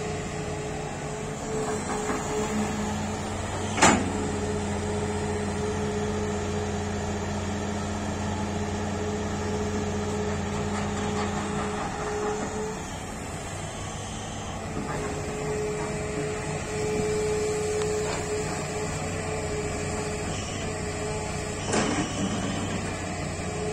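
Tata Hitachi crawler excavator working: its diesel engine runs steadily with a hydraulic whine that drops out for a couple of seconds midway. A sharp knock about four seconds in is the loudest sound, and a smaller one comes near the end, while soil is loaded into a steel tipper truck body.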